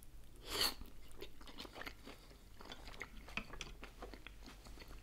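A person biting into a sauce-dipped dumpling, then chewing it with small wet mouth clicks. The bite is the loudest sound, about half a second in.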